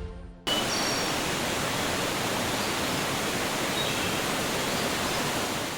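Steady rushing noise, spread evenly from low to high pitch, starting abruptly about half a second in, with a few faint high chirps over it.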